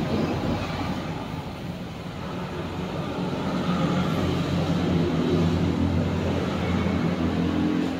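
Passing street traffic: the engines of a bus and then a truck make a low, steady drone that grows louder around the middle.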